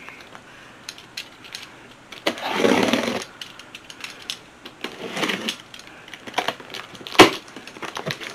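Handling and unpacking of household goods: scattered clicks and two longer rustling scrapes of packaging, then a single sharp knock a little past seven seconds in, the loudest sound.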